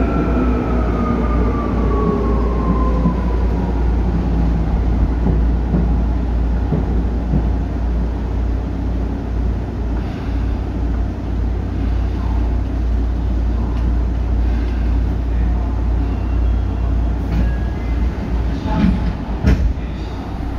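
Tokyu 8500 series subway train with Hitachi traction motors, heard from on board. The motor whine falls in pitch over the first few seconds and fades out, leaving the steady rumble of the running train. A few short knocks come near the end.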